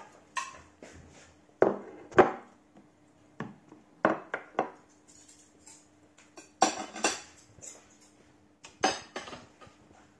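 Dishes and cutlery being handled on a table: a series of separate knocks and clinks, some in quick pairs.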